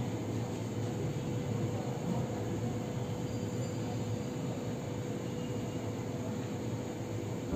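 Steady rushing background noise with a faint constant hum, without distinct splashes or clatter.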